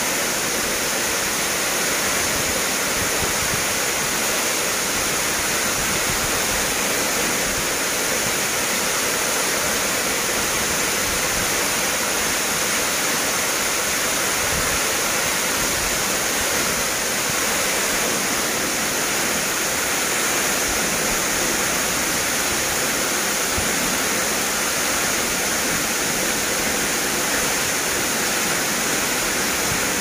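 Tall waterfall plunging into a rock pool at close range: a steady, unbroken rush of falling water.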